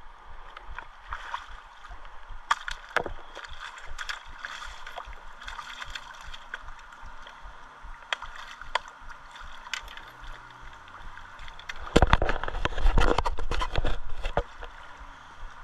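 Steady rush of river water, with scattered light clicks and knocks, and about two seconds of loud rubbing and knocking right at the microphone near the end as a hand handles the camera.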